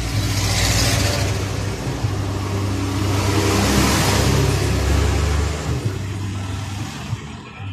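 Loud engine noise with a steady low hum under a hiss. It starts suddenly and fades over the last couple of seconds.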